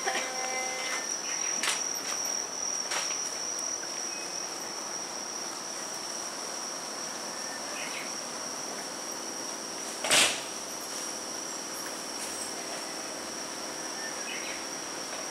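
Insects trilling at one steady high pitch. A few faint clicks, and a single sharp knock about ten seconds in.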